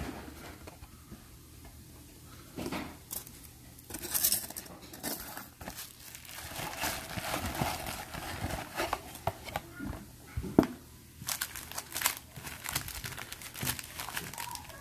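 Cardboard card box being handled and foil-wrapped trading card packs pulled out of it: irregular crinkling and rustling with scattered taps, and a sharp knock about ten and a half seconds in.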